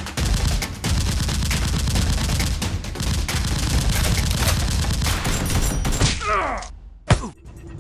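Sustained rapid gunfire, dense overlapping shots like an automatic-weapon sound effect, for about six seconds. It fades out into a short cry falling in pitch, then one sharp crack near the end.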